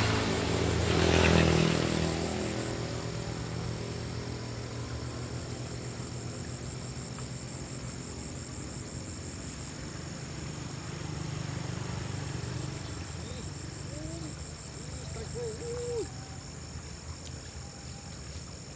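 Steady chirring of crickets and other insects with a constant high-pitched tone. A passing vehicle's engine fades out over the first couple of seconds.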